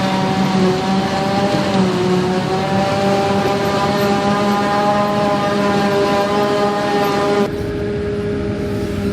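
Silage-harvesting machinery running steadily, a heavy engine drone with a whine of several steady tones. About seven and a half seconds in the sound changes abruptly and the higher part drops away.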